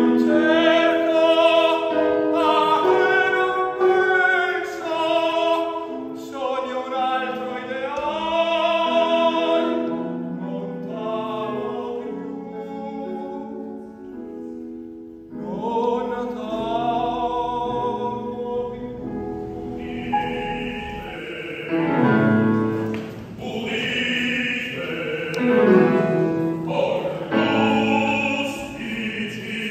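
A male opera singer sings with wide vibrato, accompanied by a grand piano, with a brief pause about halfway through.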